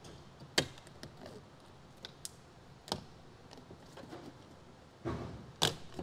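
Clear plastic vapor barrier on a truck's inner door being peeled back from its sticky sealant: crinkling plastic with a few sharp crackles, the loudest about half a second in, and a longer rustle about five seconds in.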